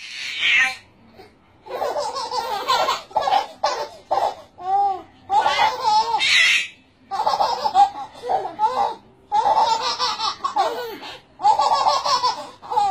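Twin babies laughing at each other in repeated bouts of belly laughs, with a high-pitched squeal about six seconds in.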